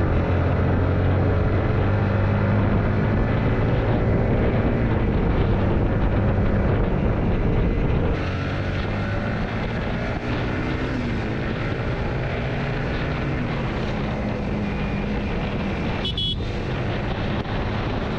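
Yamaha MT-15's single-cylinder engine running at speed, its pitch rising and falling with the throttle, over a steady rush of road and wind noise.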